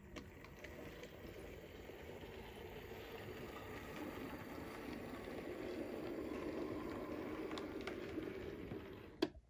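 Model steam locomotive, an OO-scale Stanier Coronation Pacific, running along the layout track: a steady rumble of motor and wheels on the rails that grows louder as it passes, then eases. A single sharp click comes just before the end.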